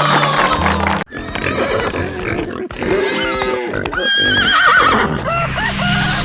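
Background music with a horse whinnying: a loud call with a trembling pitch, a few seconds in.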